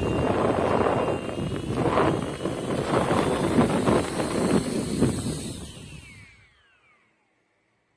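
JISULIFE pocket turbo fan blowing air onto the microphone with a high motor whine; the whine falls in pitch as the fan spins down, and it stops a little over six seconds in.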